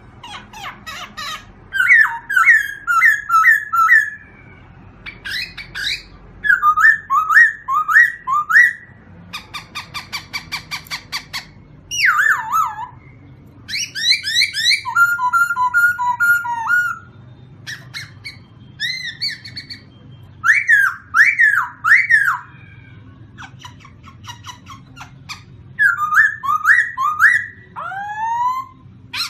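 A songbird singing loud, varied phrases of repeated whistled notes and trills, each a second or two long, with short pauses between phrases.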